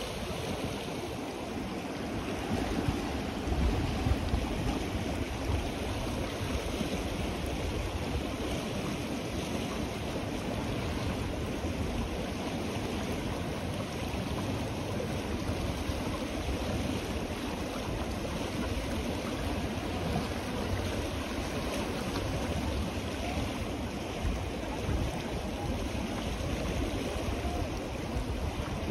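The Ganges flowing fast and turbulent: a steady rush of churning river water.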